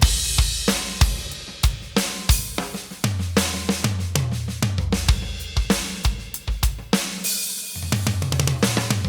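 Electronic drum kit, a Roland TD-50X module playing Vexpression's "Popped" sampled kit, played as a groove of kick, snare, hi-hats and cymbals. Two tom fills roll down across the toms, one in the middle and one near the end.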